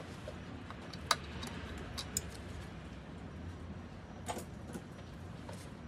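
A handful of short, sharp clicks and light metallic ticks, scattered irregularly over a low steady hum, from tools and parts being handled while disconnecting the engine's intake fittings.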